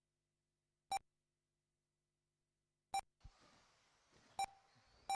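Short, identical electronic beeps from the race's lap-timing system, four of them at uneven spacing, each marking a car crossing the timing line. From about three seconds in, the faint hiss and rising-and-falling whine of RC buggies running on the track comes up underneath.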